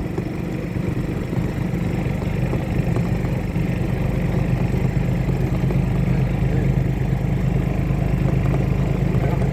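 Golf cart running along, its motor and drive giving a steady low drone that grows a little louder about three seconds in.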